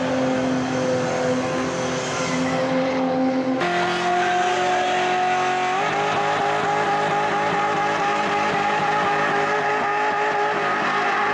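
Cars doing burnouts: engines held at high, steady revs while the rear tyres spin and squeal. The engine note jumps abruptly to a different pitch about a third of the way in and again about halfway, as separate burnout clips follow one another.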